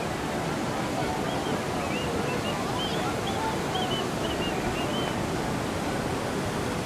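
Water rushing steadily down a water ride's drop chute, a constant even rush of falling water. Faint short high chirps are heard through the middle.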